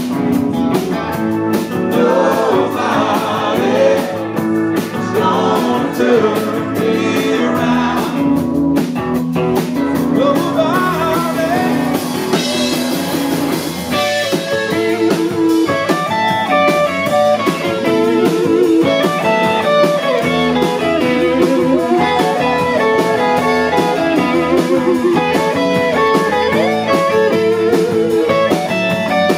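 Live rock band playing loudly on electric guitars and a drum kit.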